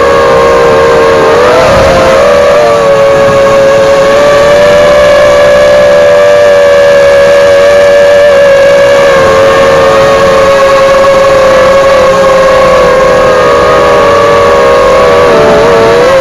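Eachine Falcon 250 quadcopter's brushless motors and propellers whining in flight: several close, steady tones that waver and shift in pitch together as the throttle changes, most noticeably about two seconds in and near the end.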